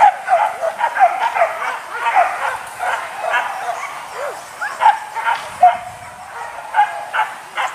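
Hunting dogs yelping and barking, many short high calls overlapping one after another.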